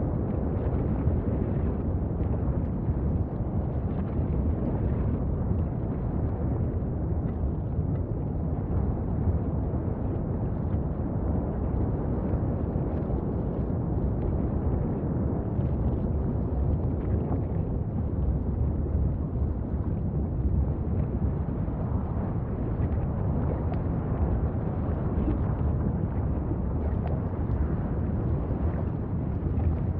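Steady, deep rumbling noise of a volcanic eruption, continuous with no breaks and heaviest in the low end.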